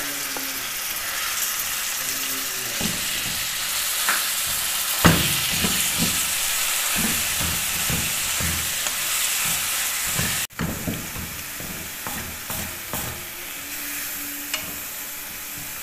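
Raw chicken mince sizzling in hot oil in a non-stick frying pan, stirred and broken up with a wooden spoon that scrapes the pan in repeated strokes, about two a second in the middle. The sizzle turns softer about two-thirds of the way through.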